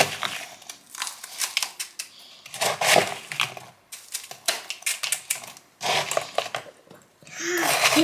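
A plastic scoop scraping and crunching through loose ice shavings, frost cleared from a freezer, in a plastic bowl, in several bursts of crisp clicks and crunches.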